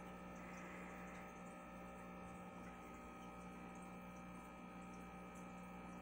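Faint, steady hum of aquarium equipment (air pump and filter), with light bubbling from the air-stone column.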